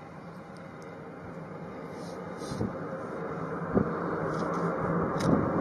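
Jet engines of Rockwell B-1B Lancer bombers running at taxi power, a rushing noise that grows steadily louder as they come nearer, with two brief thumps near the middle.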